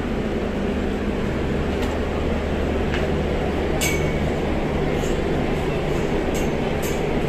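Steady low engine drone of a car ferry's machinery, with a few short metallic clinks about halfway through and near the end.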